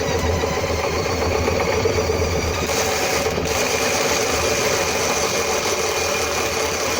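Electric hand drill running steadily, spinning a homemade honey extractor drum to fling honey out of the comb frames.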